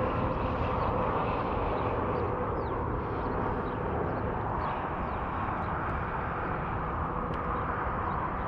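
Steady outdoor background rumble on open water, with faint short bird chirps scattered through it.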